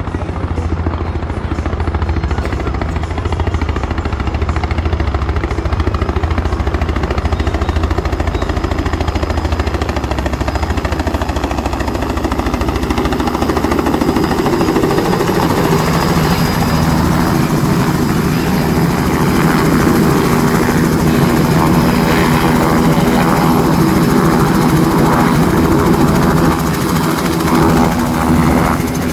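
Robinson R66 turbine helicopter coming in to land: at first a low, steady rotor beat, then from about halfway a louder, fuller rotor and engine sound as it hovers close and settles on the pad, still running.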